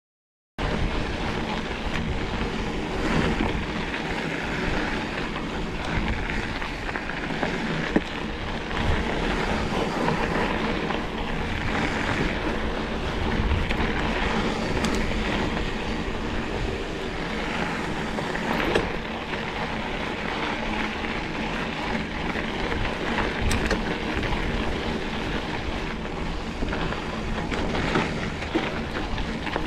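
Mountain bike riding fast down a dirt singletrack: steady wind rushing over the camera microphone, with tyre noise and rattling, and a few sharp knocks over bumps. It starts suddenly about half a second in.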